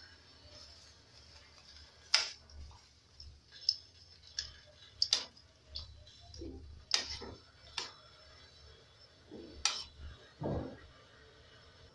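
Metal kitchen tongs clicking and tapping against a stainless steel pot as spinach leaves are pressed into boiling water: several sharp, irregularly spaced clinks a second or so apart.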